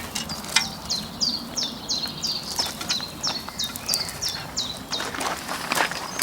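A small bird calling over and over, short high chirps that each slide downward, about three a second, stopping about five seconds in. A few sharp clicks and scrapes sound around it.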